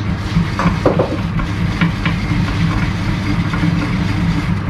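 Steady low mechanical hum, like a motor or fan running.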